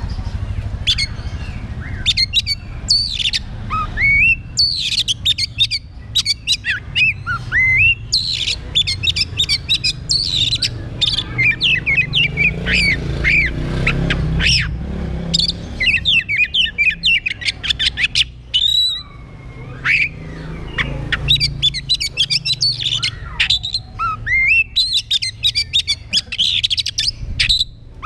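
Oriental magpie-robin singing in full song: a long, varied run of quick chirps, whistles and sliding notes with only short pauses, over a low background rumble.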